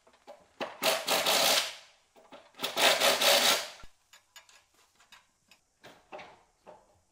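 Handheld power drill run in two bursts of about a second each, fastening hardware on an aluminium beam of a sawmill frame being assembled, followed by light metallic clicks and taps from bolts and nuts being fitted by hand.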